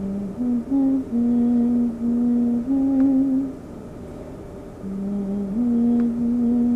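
A person humming a slow tune in long held notes, in two short phrases with a pause between them.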